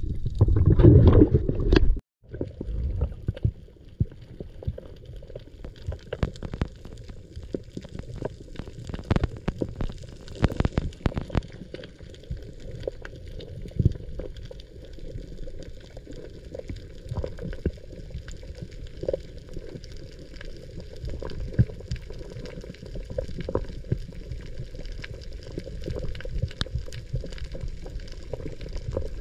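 Underwater sound picked up by a diving camera: a loud, muffled low burst that cuts off about two seconds in, then a steady low rumble of water scattered with many short crackling clicks.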